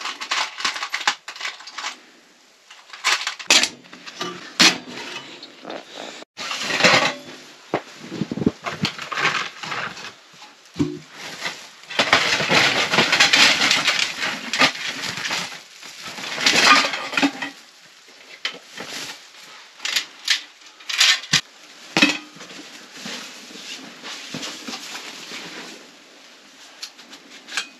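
Metal clinks and knocks as a small steel wood stove and its stovepipe sections are handled and fitted together, with a long stretch of rustling from a woven sack being rummaged through near the middle.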